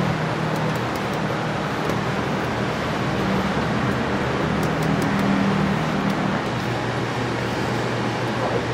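Steady traffic-like background noise with a low hum that comes and goes, and a few faint ticks now and then.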